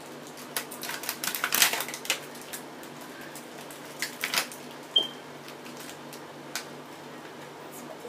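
Small plastic toy figures and mini shopping bags handled and set down on a table: scattered light clicks and short rustles, busiest in the first couple of seconds.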